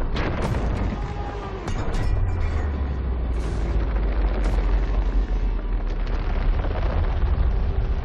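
Action-film sound mix of explosions and impacts over a heavy, deep rumble, with a music score underneath. The rumble steps up in loudness about two seconds in.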